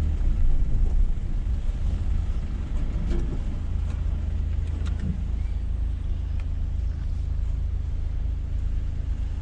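Steady low rumble of a Renault car's engine and road noise heard from inside the cabin as it moves slowly in traffic.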